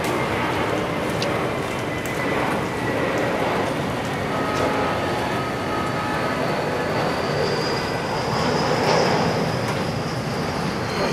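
Jet aircraft engines running: a steady rush with a thin high whine that rises slightly and swells about nine seconds in.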